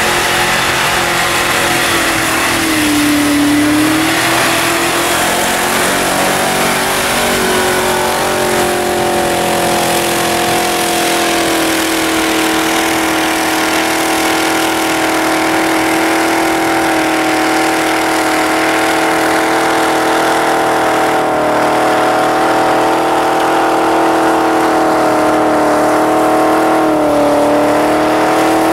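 Land Rover Discovery's V8 engine held at high, steady revs as it climbs a snowy track with its wheels spinning, the pitch dipping briefly a few times when the revs drop and pick up again.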